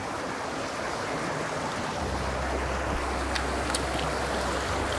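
Small forest stream rushing and splashing over rocks in a steady wash of water. A low rumble joins about two seconds in, with a few faint clicks.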